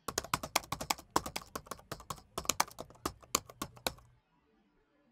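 Fast typing on a laptop keyboard: a quick, uneven run of key clicks that stops about four seconds in.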